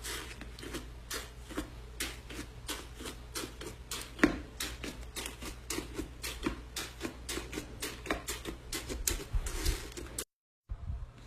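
Slime being pressed and squished by hand, giving a steady run of sharp crackling clicks and pops, about five a second, over a low hum. It cuts off abruptly about ten seconds in.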